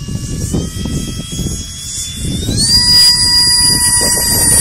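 RC jet engine whining at a steady high pitch, spooling up in two steps, about half a second in and again around two and a half seconds in, and louder after the second step.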